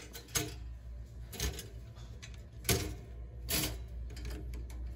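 Slices of bread dropped into a four-slot stainless steel toaster and its levers pushed down: about four light knocks and clicks, the loudest a little past the middle, over a low steady hum.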